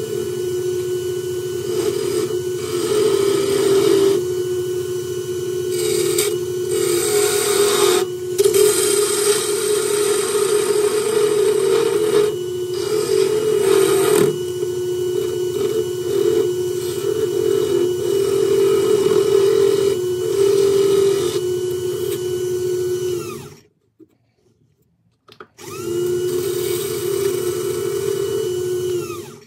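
Wood lathe running with a steady motor hum while a hand-held turning tool cuts the spinning oak blank, giving repeated bursts of rasping, hissing shavings. Near the end the sound cuts out for about two seconds. The lathe then comes back up to speed and winds down as it is switched off.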